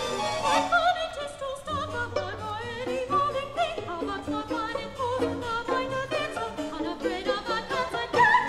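Soprano singing with wide vibrato over a string quartet and harpsichord in a classical chamber piece, rising to a loud high note near the end.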